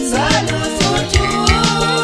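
Music: a song with a bass line and a steady drum beat about every half second, carrying a melody line that glides at first and then holds a long note.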